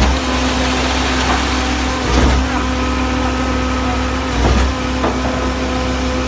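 Diesel engine of a concrete mixer and pump running steadily under load on a construction site. A heavier low pulse comes about every two seconds, in time with the pump's strokes.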